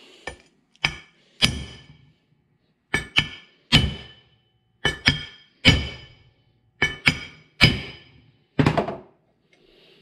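Ball-peen hammer striking a flat steel plate laid over a bearing race, driving the outer race down into a cast-iron wheel hub. About a dozen sharp ringing metal blows, often two in quick succession, with short pauses between.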